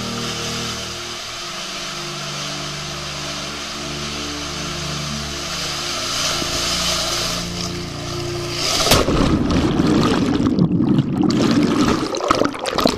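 Water rushing and a low, steady hum as a rider slides down an enclosed waterslide tube. About nine seconds in comes a sudden splash into the pool, then muffled, churning underwater gurgling as the camera goes under.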